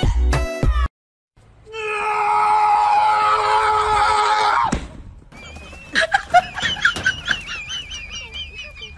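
A loud scream about three seconds long that falls slightly in pitch, followed by softer, high, wavering cries.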